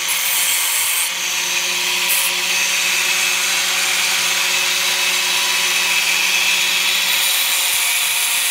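Small angle grinder with a thin disc grinding bevels onto the edge of a metal spoon. The motor runs steadily with a few constant tones over a loud hissing grind.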